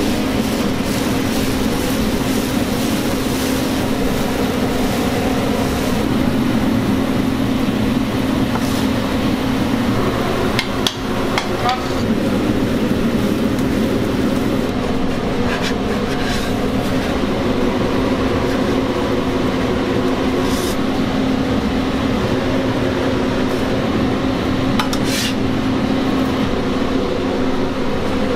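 A steady ventilation fan drone in a restaurant kitchen, with a few scrapes and taps of a ladle and metal spatula on a flat-top griddle as dosa batter is spread and chili paste is worked over it.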